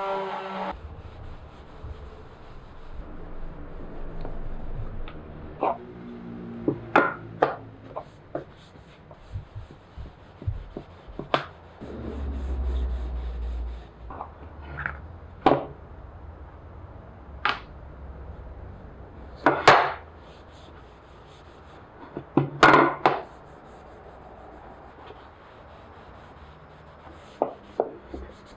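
Irregular wooden knocks and taps, as of a pine board and wooden pieces being handled and set down, with some rubbing between them. The strongest knocks come about two-thirds of the way through.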